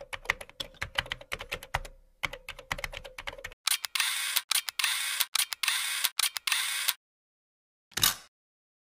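Logo-animation sound effect: rapid irregular clicking like typing on a keyboard, then a denser, louder run of noisy clacks. It cuts off, and one short hit follows near the end.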